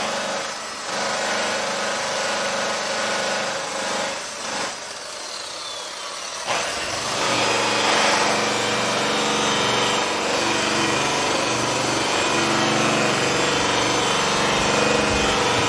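Makita angle grinder running with a buffing wheel, polishing the lip of an alloy car wheel with medium buffing compound. It gets louder and fuller about six and a half seconds in and then runs steady.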